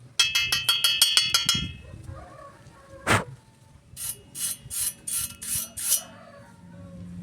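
Hand tools working on steel: a fast run of ringing metal taps, about seven a second, for a second and a half, then one sharp strike, then six short scraping strokes about three a second.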